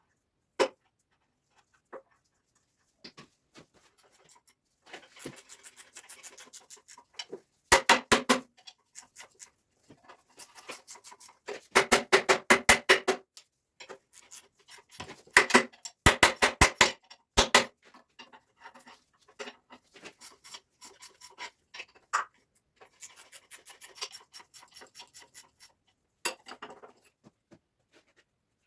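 Hand-tool work on metal tractor parts: separate sharp knocks and clicks, with several bursts of rapid, evenly spaced clicking and scattered softer clatter between them.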